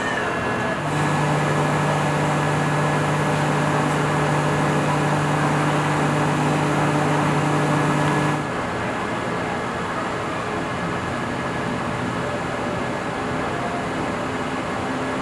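Steady machinery hum over constant background noise. A low droning tone starts about a second in and cuts off suddenly near the middle.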